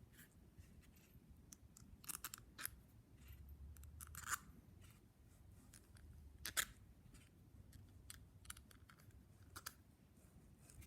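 Scattered light clicks and taps of small parts being handled, irregular, with a few sharper ones about two, four and six and a half seconds in, over a faint low hum.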